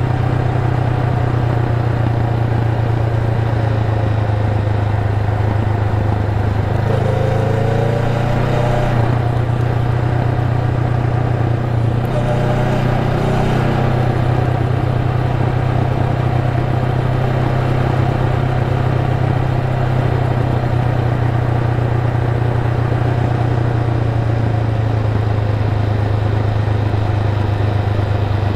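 Honda Rebel 500's parallel-twin engine running steadily while the motorcycle cruises. The engine note shifts briefly about seven seconds in and again around twelve seconds in.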